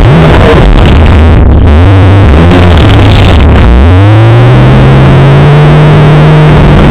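Extremely loud, clipped and heavily distorted roar with electronic sliding pitches. About halfway through it settles into one long, low held tone that rises slightly.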